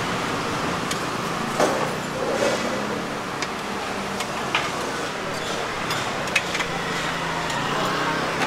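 A metal spatula clinking a few times against a steel frying pan and tray as pan-fried buns are scooped out, over steady street noise with passing traffic.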